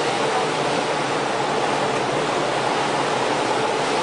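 Steady rushing of water and wind around a boat under way, with a faint steady hum underneath.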